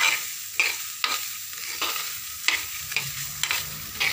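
A wooden spatula stirs and scrapes split moong dal that is being dry-roasted, with no oil, in a metal frying pan. About six sharp scrapes come at uneven intervals, half a second to a second apart, over a steady rasp of the dry grains.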